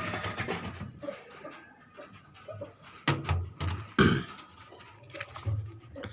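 Caged white pigeons cooing, with two sharp knocks about three and four seconds in.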